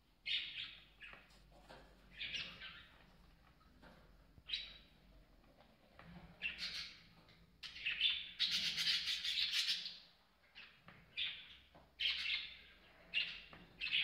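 Budgerigars chirping and chattering in short high-pitched bursts, with a longer stretch of continuous warbling chatter about eight seconds in.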